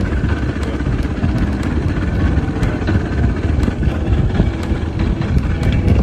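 Bass boat's outboard motor running, a steady low rumble.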